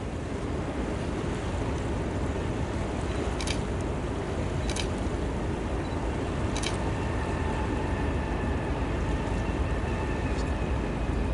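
Steady low rumble of wind on the microphone at the shore. Three short, high chirps come in the middle, and a faint steady high tone starts about two thirds of the way through.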